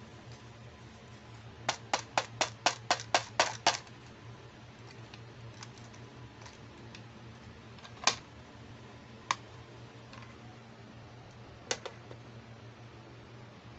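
Fingernails tapping and clicking on a hard plastic toy makeup case: a quick run of about nine taps, then a few single clicks spread apart.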